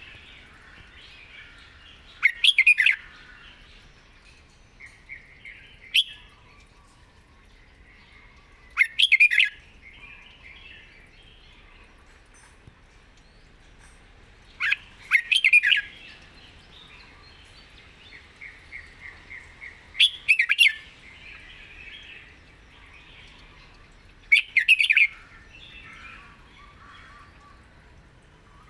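Red-whiskered bulbul singing: five short, loud phrases every four to six seconds, with softer twittering between them.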